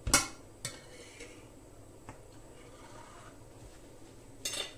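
Kitchen cookware and utensils knocking and clinking: a loud sharp clink at the start, a few lighter knocks over the next two seconds, and a short clatter near the end.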